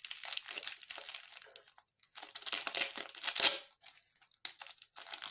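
Plastic wrapping crinkling and crackling as it is handled, in two main bouts with the second louder, then scattered crackles.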